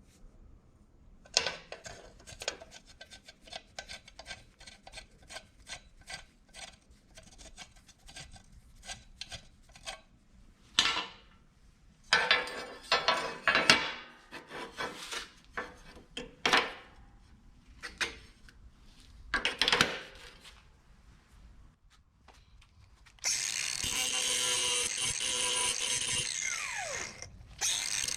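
Hand tools working steel: a run of irregular sharp metal strikes, then scraping and grinding-away sounds with a few heavier blows, as old welds are knocked off the band saw's motor mounting nuts. About 23 seconds in, a steady, loud machine starts and keeps running.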